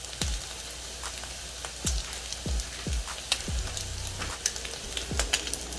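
Pan-fried pot stickers sizzling in hot oil, with a dense crackle of small pops.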